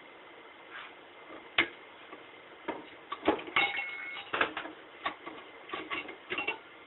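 Metal parts of a 700R4 automatic transmission clicking and clinking as a clutch drum is opened and its clutch plates are handled: a sharp click about a second and a half in, then a run of clinks with one brief metallic ring, and a few more clicks near the end.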